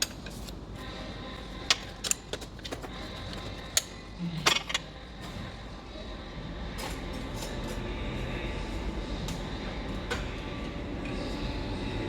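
Hand tools clinking and knocking against metal in a car's engine bay while the alternator is being taken off: a few separate sharp clicks, with a short cluster about four and a half seconds in. From about six seconds a steady background rumble builds up and grows louder.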